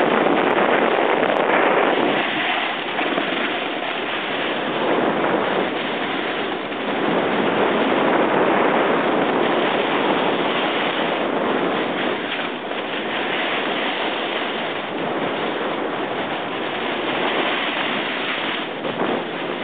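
Continuous rushing, scraping noise of a snowboard sliding over snow, with wind blowing across the microphone. It swells and fades every few seconds.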